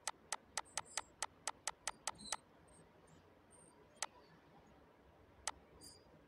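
Computer mouse clicking: a quick run of about eleven sharp clicks, roughly four a second, then two single clicks later on. It is the pointer working the scroll arrow of a drop-down list.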